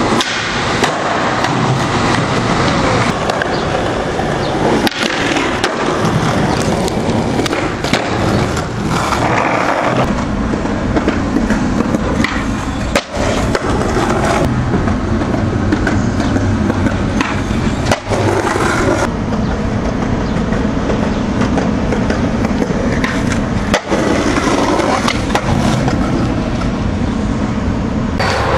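Skateboard wheels rolling hard over concrete and asphalt, loud and continuous, with now and then a sharp knock of the board, across a string of street-skating clips.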